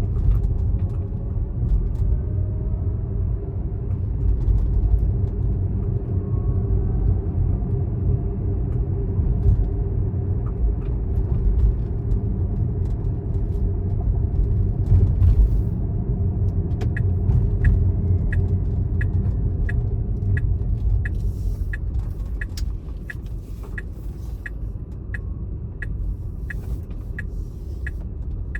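Low, steady rumble of a motor vehicle on the road. Past the middle, a regular sharp ticking starts, about two ticks a second.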